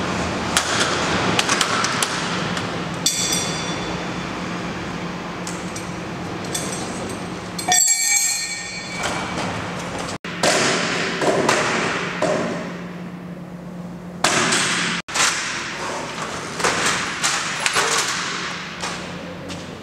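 Aluminium-alloy roller shutter door being worked by hand: the slats rattle and clatter as the curtain runs along its guides, with metallic clinks and knocks. It comes in several stretches that cut off suddenly about 8, 10 and 15 seconds in.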